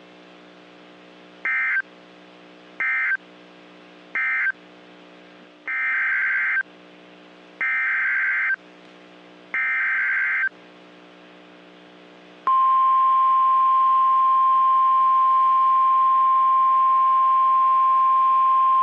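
NOAA Weather Radio Emergency Alert System activation. First come three short buzzing SAME end-of-message data bursts, then three longer SAME header data bursts. About two-thirds of the way in the steady 1050 Hz weather radio warning alarm tone starts and holds. The header and alarm tone signal the start of a new warning broadcast, here a tornado warning.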